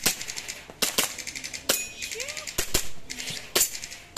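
Handgun shots fired in a timed practical-shooting stage: about eight sharp reports in four seconds, some as quick pairs and some as singles with short gaps, each with a brief ringing echo.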